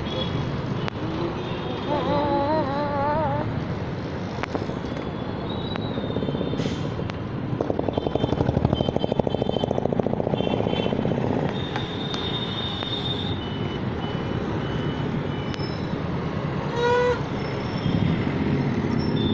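Busy road traffic heard from a bicycle riding among it: steady engine and road noise from motorbikes, scooters and cars. A nearby engine gets louder for a few seconds in the middle. A short warbling tone comes early on, and a few brief beeps or horn notes come later.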